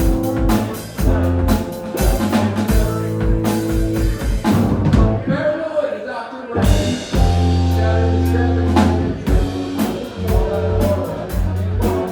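A live band of electric guitar, bass, drums and keys playing a groove with a steady drum beat. About halfway through the bass and drums drop out for about a second and a half, then the full band comes back in with a heavy bass note.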